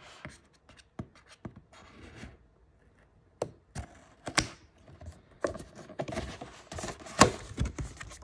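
Scissors snipping along the edge of a cardboard doll box, with scattered sharp clicks and scraping of cardboard and plastic packaging; the loudest snap comes near the end.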